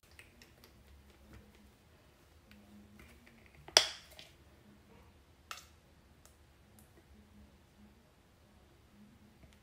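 Quiet kitchen with a few faint ticks, one sharp click about four seconds in and a softer click about a second and a half later, from handling a squeeze bottle and spatula at a glass bowl.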